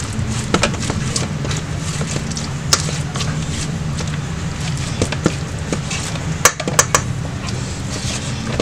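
Black plastic potato masher pressing kidney beans in a stainless steel bowl, knocking against the bowl in scattered sharp clicks, three in quick succession about six and a half seconds in, over a steady low hum.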